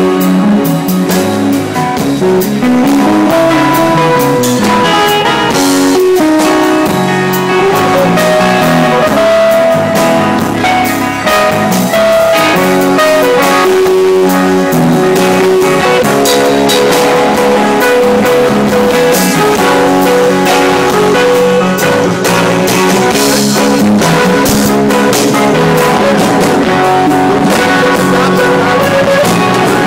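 A band playing a blues-rock jam: electric guitar lines over bass and a drum kit, loud and steady throughout.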